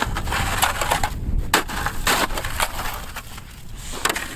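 A quick series of crunching, scraping strokes as snow and ice are dug out of a frozen-over fishing hole with a snow shovel and a homemade ice chisel.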